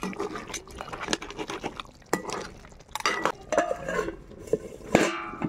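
Steel slotted spatula stirring and scraping crab curry in a metal kadai, with repeated clinks and knocks against the pan. About five seconds in, a steel lid clanks down on the pan and rings briefly.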